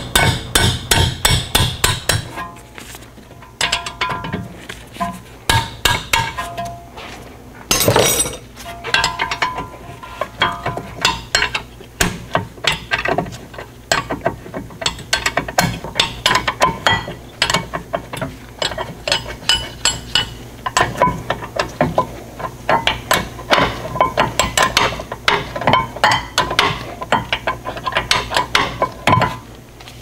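Wrench clicking in quick runs as it turns the rear brake caliper bracket bolts loose, with metal clinks of the tool against the bracket and a single louder knock about 8 seconds in.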